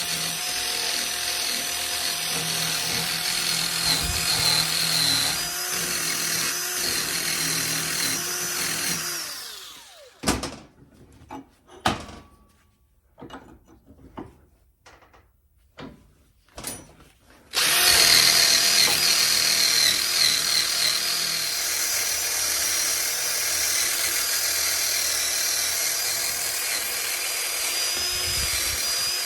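Power wire-wheel brush scrubbing rust and grime off a steel pedal-assembly base, a steady loud whir with a high whine. It winds down about nine seconds in, a few knocks follow in the pause, and it starts up again abruptly near the two-thirds mark.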